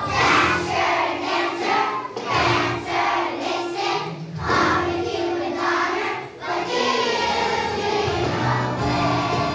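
Children's choir singing a song together, in short phrases that give way to longer held notes about two-thirds of the way through.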